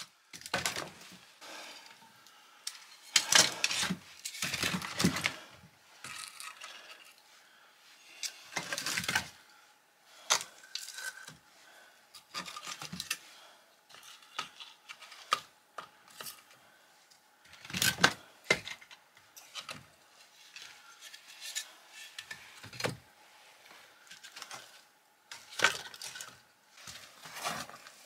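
Split firewood sticks knocking and clattering against each other and against the firebox as they are loaded into a masonry stove. There are irregular wooden knocks with a few louder clatters.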